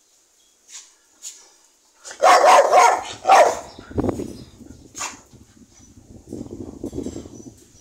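A dog barks in two loud bursts, a little over two seconds in and again about a second later, followed by quieter scuffling and noises among the dogs.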